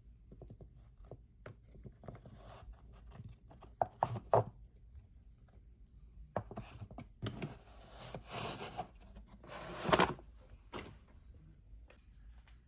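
Wooden pieces being handled, rubbing and knocking against each other, with two sharp knocks about four seconds in and a louder scrape and knock near ten seconds.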